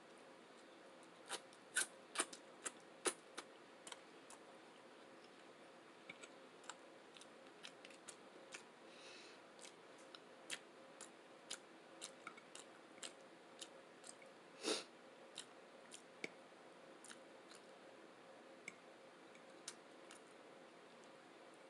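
Close-miked eating sounds: quiet, irregular wet clicks and smacks of a mouth chewing, with a cluster of sharper clicks about two seconds in and one louder smack about fifteen seconds in.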